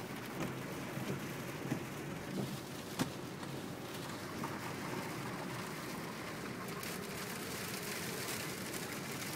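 Hurricane rain beating steadily on a car, with scattered sharp taps of drops striking.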